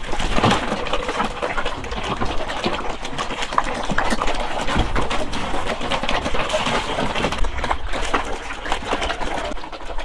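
Several pigs eating wet feed from a wooden trough: rapid, irregular smacking and slurping chomps.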